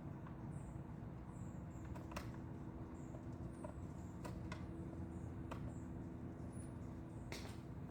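Faint, scattered clicks and light knocks from hands working on a portable bucket washer's fittings, such as tightening a set screw, over a steady low hum.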